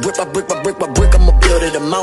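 Hip hop track with a rapped vocal over quick ticking percussion, and a long deep bass note that comes in about a second in.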